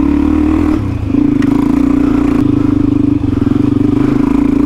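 Big-bore Suzuki DRZ400 single-cylinder dirt bike engine running steadily with an even pulse, dipping briefly about a second in and then picking back up.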